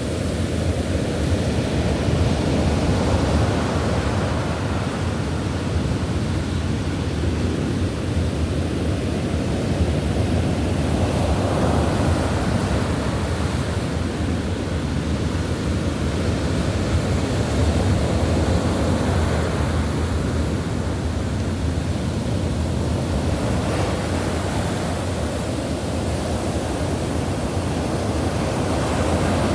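Ocean surf: a steady wash of waves, swelling and easing every several seconds.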